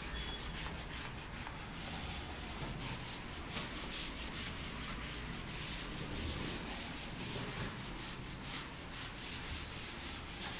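Chalkboard duster rubbing across a chalkboard in quick repeated strokes, a scrubbing hiss that swells with each stroke as the chalk is erased.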